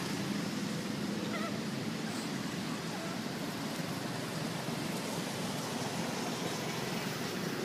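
Steady outdoor background noise with a low, even hum, like distant traffic or a motor, and no distinct events.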